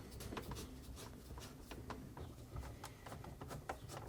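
Screws being driven back in by hand with a screwdriver: faint, irregular small clicks and scraping ticks, several a second.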